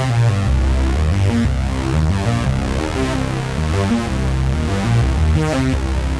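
Software synthesizer preset from the AAS Ultra Pads sound pack for the VA-3 virtual analogue synth being played: dense sustained chords over a strong bass line that changes notes about once a second, in an electronic, trance-like style.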